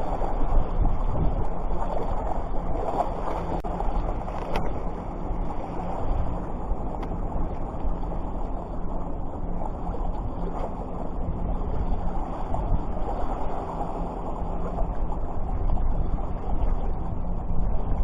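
Steady wind rumbling on the microphone over the wash of sea water.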